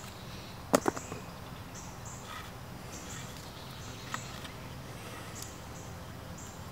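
Hand handling of a cord lashing on two wooden poles: a pair of sharp wooden clicks just under a second in, then a few faint ticks over a quiet outdoor background.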